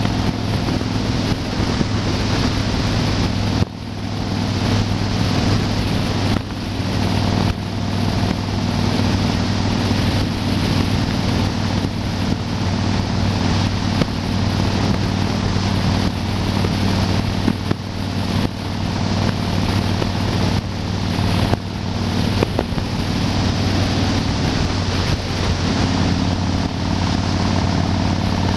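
Yamaha XV1600 Wildstar's V-twin engine running steadily at highway cruising speed, under heavy wind noise on the microphone.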